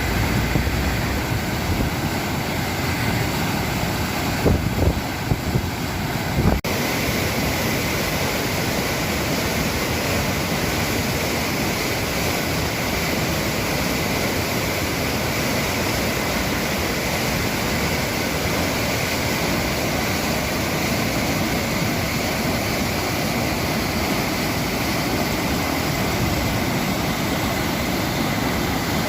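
Steady rushing of water pouring over the overflowing reservoir's spillway, unbroken apart from a brief jolt about six and a half seconds in.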